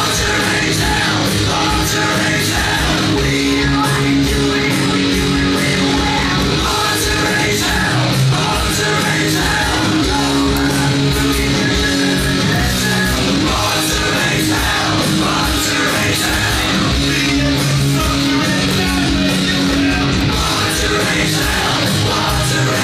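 Loud heavy rock music with electric guitar and a steady beat, starting abruptly.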